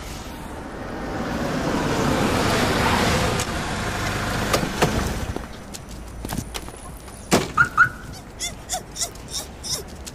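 A car drives past, its noise swelling and fading over the first five seconds, then a sharp thud near the middle, like a car door shutting. Later come two quick high car-alarm chirps, then a run of short beeps and taps.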